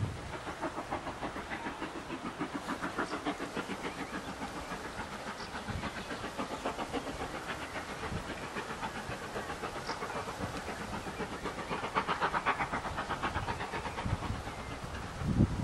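Steam locomotive working under steam as it hauls a train, its exhaust chuffing in a quick, even rhythm that grows a little louder as it approaches.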